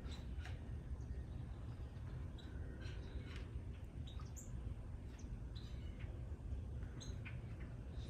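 Small birds chirping: short, high chirps and calls scattered irregularly, over a steady low background rumble.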